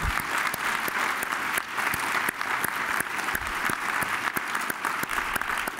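Audience applauding: many hands clapping in a steady, even patter.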